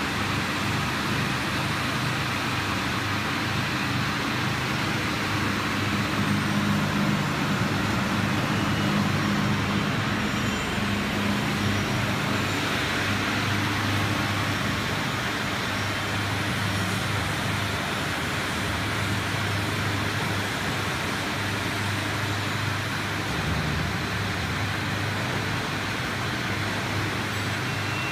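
Polyester fibre opening machine running steadily: a low motor hum under the rushing air of its fan blowing opened fibre out of the outlet pipe.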